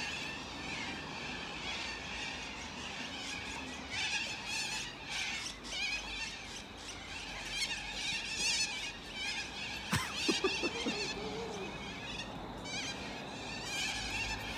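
A flock of cockatoos screeching, many harsh calls overlapping, in denser bursts a few seconds in and again near the end. A single sharp knock about ten seconds in.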